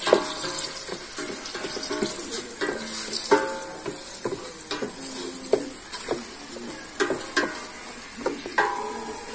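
Chicken pieces sizzling in hot oil in a stainless steel pot as they are sautéed and stirred, the chicken giving off its own fat. The stirring utensil knocks and scrapes against the pot about a dozen times, some knocks leaving a brief metallic ring.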